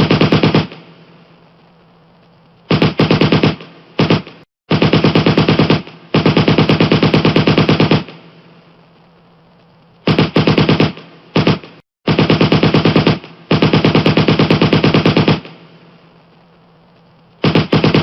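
Pistol gunfire sound effect: rapid shots fired in bursts of uneven length, some brief and some about two seconds long, with short pauses in which each burst's echo dies away.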